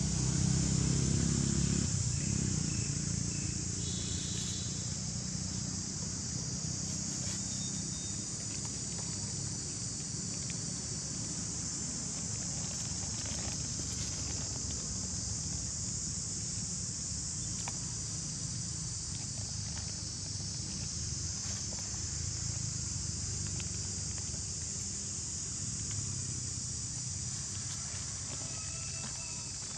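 A continuous high-pitched chorus of insects buzzing, with a low rumble underneath that is loudest in the first couple of seconds. A few faint short calls come through around four seconds in and near the end.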